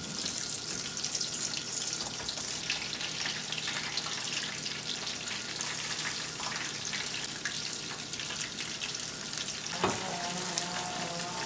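Panko-breaded chicken katsu cutlets deep-frying in a pan of oil: a dense, steady crackling sizzle, the oil hot enough that the breading browns very quickly. About ten seconds in there is a knock, and a steady drone from lawn equipment joins.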